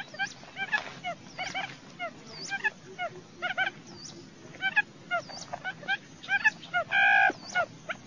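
Buttonquail calls played as a decoy recording for luring the birds: rapid, overlapping short arching chirps, with thin high descending whistles here and there and one louder held note about seven seconds in.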